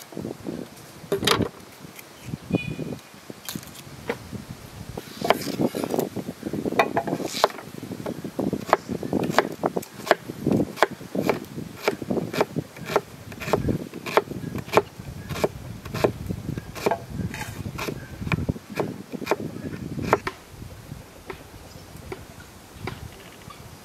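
Kitchen knife chopping an onion on a wooden cutting board: a steady run of sharp knocks, about two a second, starting a few seconds in and stopping a few seconds before the end.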